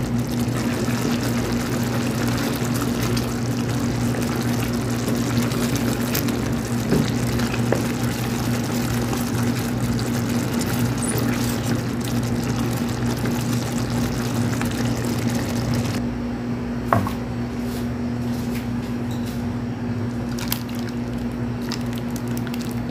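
Thick homemade barbecue sauce being stirred with a wooden spoon in a steel pot, wet liquid sounds over a steady low hum. The upper hiss drops away about sixteen seconds in, and near the end the sauce is poured over meat in a glass baking dish.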